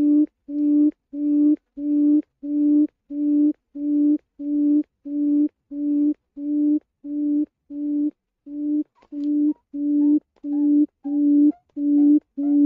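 Quail call played as a trapping lure: a steady series of low hooting notes, about two a second, each one pitched note with faint overtones. There is a short break about eight and a half seconds in, and faint higher chirps come in over the later part.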